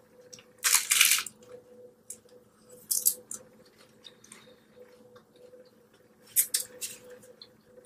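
Mouth sounds of eating a taco close to the microphone: wet chewing and smacking in a few short bursts, the loudest about a second in and another pair near the end.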